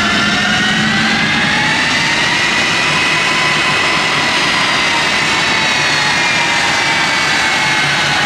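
Pratt & Whitney F117 turbofans of a Boeing C-17 Globemaster III taxiing close by: a loud jet whine over a rushing rumble, its several tones climbing over the first three seconds and then slowly sinking.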